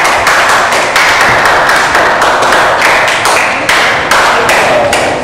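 A group of people applauding: many hands clapping at once in a dense, steady patter.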